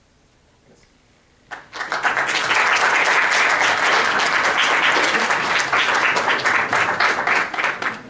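Audience applauding, a dense crowd clapping that starts about a second and a half in and drops away near the end.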